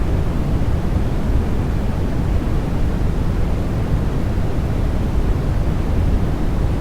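Continuous electronic sleep noise, sold as white noise for babies: an even, unbroken rush, deeper than a hiss, strongest in the bass and fading toward the top, with no change at all.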